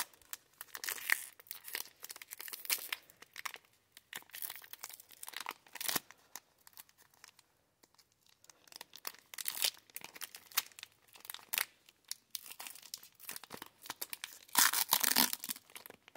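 Foil wrapper of a Pokémon trading-card booster pack being crinkled and torn open by hand, in a run of irregular crackling tears with a short lull in the middle and the loudest rip near the end.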